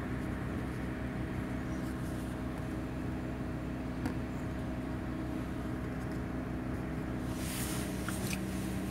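Ford Cargo 4331 truck's diesel engine running steadily, heard inside the cab, with a brief rustle of handling near the end.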